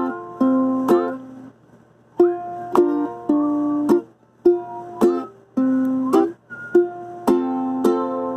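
Acoustic ukulele fingerpicked: short phrases of plucked notes and chord tones with brief pauses between them, and a few notes sliding up in pitch.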